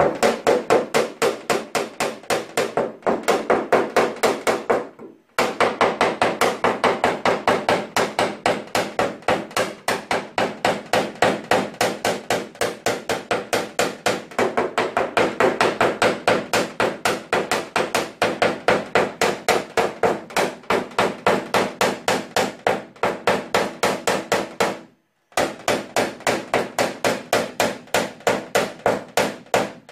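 Rapid, even tapping of a hammer on a tap-down punch held against an Opel Astra's steel hood, about five or six taps a second, knocking down a raised spot in paintless dent repair. The tapping stops briefly about five seconds in and again near twenty-five seconds.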